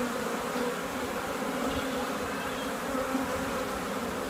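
A crowd of honey bees flying loose around an open hive and package, buzzing in a steady, wavering hum.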